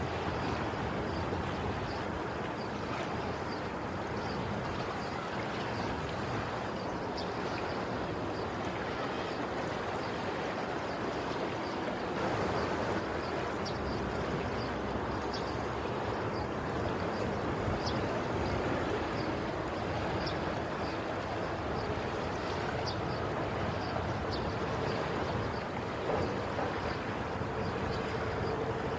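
Ocean waves washing ashore in a steady, even surf noise, swelling a little now and then, with faint short ticks over it.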